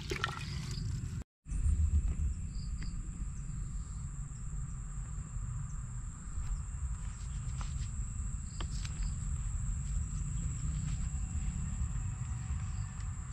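Insects calling in one unbroken high-pitched tone over a low rumble, with a few faint short chirps here and there. The sound drops out briefly about a second in.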